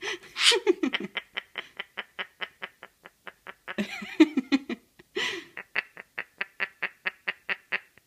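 Princess parrot chattering: a rapid run of short clicky notes, about five a second, broken by louder harsh bursts of babble near the start, around halfway and just past five seconds in. The babble is the bird's attempt at talk, unintelligible.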